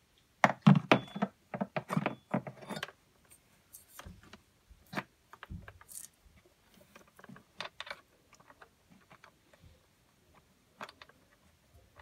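A metal battery clamp and sealed batteries handled inside the plastic cabinet of an Anchor Liberty portable PA speaker: a quick flurry of metallic rattles and clicks in the first few seconds, then scattered clicks and a soft thump as the clamp is fitted over the batteries.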